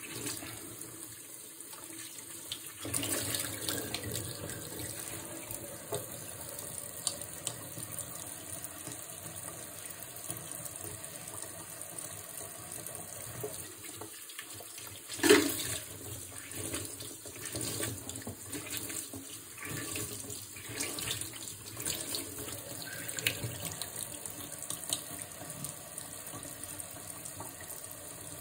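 Kitchen faucet running into a stainless steel sink while a microfibre cloth is rinsed and squeezed under the stream. A single sharp knock about halfway through is the loudest sound.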